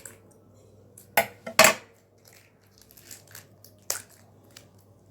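Plastic wrapping on a mini Play-Doh pot being cut and pulled open. It crackles and crunches in a few sharp bursts, loudest twice between one and two seconds in, and once more near four seconds.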